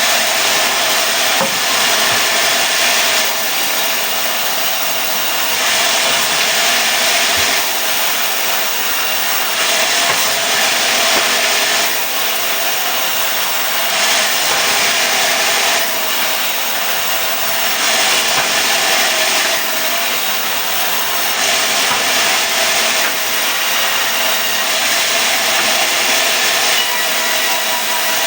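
Sawmill saw cutting through mahogany: a loud, continuous sawing noise over a faint steady hum, the cutting sound swelling and easing every couple of seconds.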